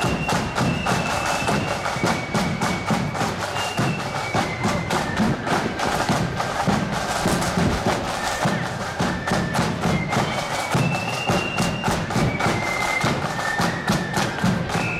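Marching band playing a tune as it marches: a high melody line over continuous rapid drumming.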